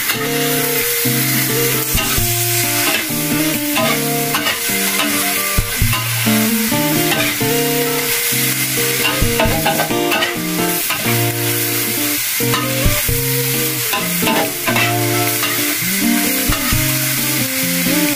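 Stir-frying in a wok: water morning glory and pork cracklings sizzling while a metal spatula scrapes and clinks against the pan in quick, irregular strokes. Background music with held notes plays under it.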